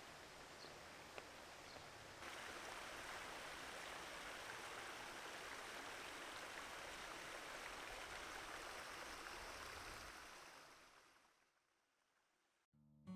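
Flowing stream water, a steady rushing that steps up louder about two seconds in, then fades out to silence. Acoustic guitar music starts just before the end.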